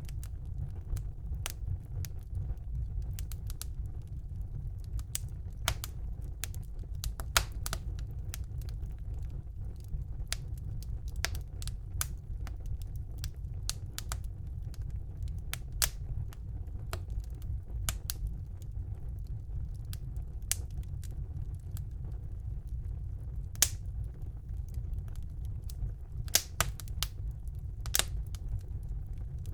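Wood fire burning in a fireplace: a steady low rumble of the flames under irregular sharp crackles and pops, a few of them louder.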